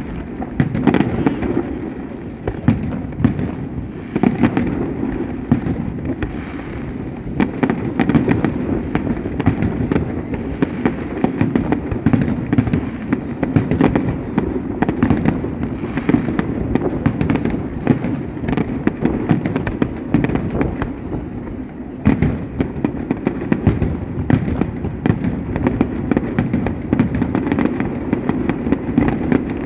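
Fireworks display: a dense, continuous crackle of many shells and firecrackers bursting in quick succession, with no real pause.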